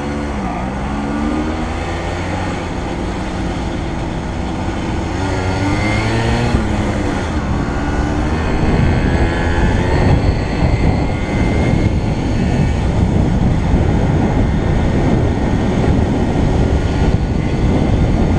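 Vehicle engine running while driving, its pitch falling and rising in the first few seconds. From about eight seconds in, louder wind and road noise builds as speed picks up.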